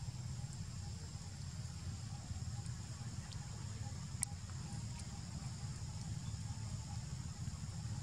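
Outdoor background sound: a steady low rumble under a faint, steady high-pitched drone, with one sharp click a little after four seconds in.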